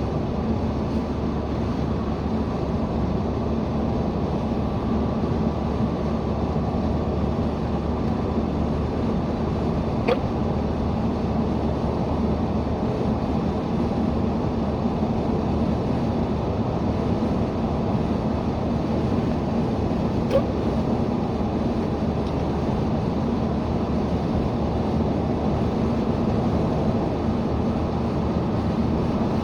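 Steady road and engine noise inside a moving car, with two short hiccups about ten seconds apart.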